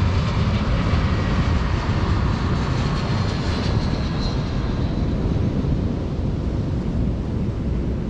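Jet airliner engines heard as a loud, steady rush with a faint falling whine about three to four seconds in.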